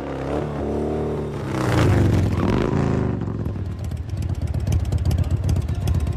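Motor vehicle engine revving, its pitch rising and falling over the first three seconds, then settling into a fast, even pulsing idle from about halfway through.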